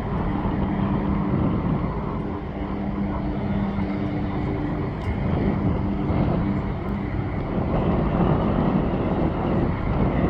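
Jet airliner engine noise: a steady roar that grows louder near the end, with a low steady hum underneath that drops out about seven seconds in.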